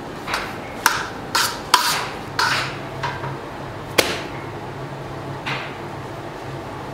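A series of sharp, irregular knocks and clatters of hard objects being handled, about seven in all, the loudest near two seconds in, some ringing briefly.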